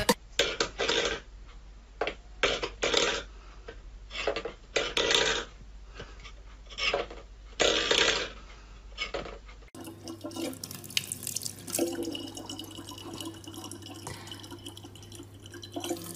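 A series of short, separate loud sounds, then, from about ten seconds in, a kitchen tap running a thin stream of water into a plastic water bottle, with a steady low hum under it.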